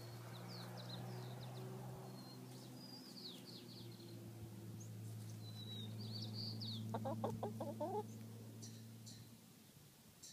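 Domestic chickens clucking, with a short run of clucks about seven seconds in, over faint high chirping and a steady low hum that fades out near the end.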